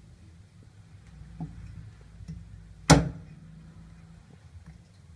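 Meat cleaver chopping a goose carcass on a round chopping block: a few light knocks, then one heavy chop about three seconds in and another at the very end.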